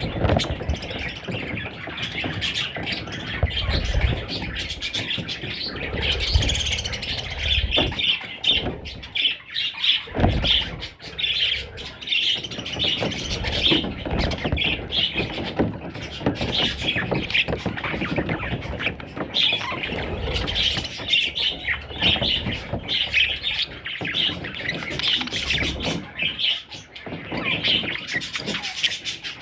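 Budgerigar chicks chirping and squawking, with many short calls overlapping continuously.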